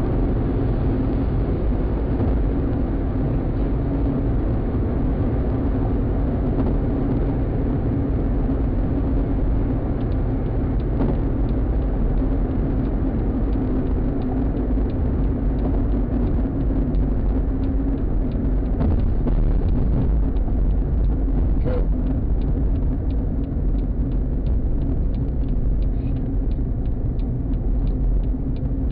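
Steady road and engine noise of a moving car heard from inside its cabin through a dash cam's microphone: a constant low rumble with a steady hum, and a few light clicks in the second half.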